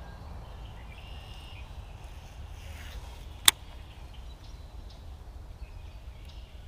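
Open-air background: a steady low rumble of wind with a few faint, short bird chirps, and one sharp click about three and a half seconds in.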